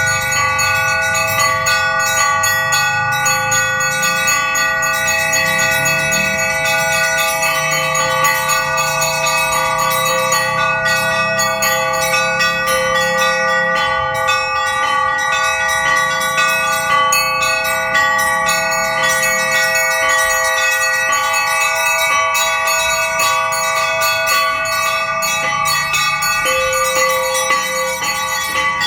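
Russian-style bell ringing on five bells: three small zazvonnye treble bells struck rapidly and continuously over two medium podzvonnye bells. The tones ring on and overlap without a pause.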